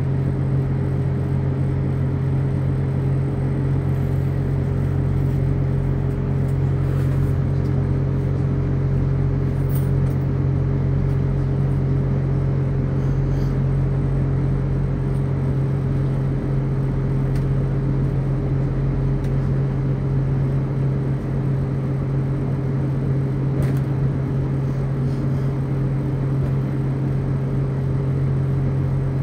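Class 175 diesel multiple unit heard from inside the passenger saloon: the underfloor diesel engine's steady low hum over a constant rumble.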